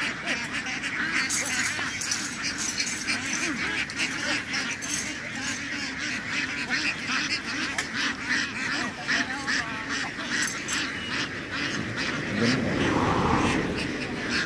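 A large flock of laying ducks crowded together, calling and quacking in a dense, continuous din, with a louder swell near the end.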